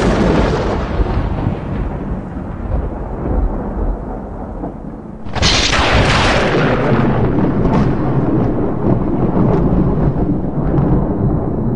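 Thunder: the rumble of a thunderclap rolling away, then a second sharp crack about five seconds in that rolls into a long low rumble.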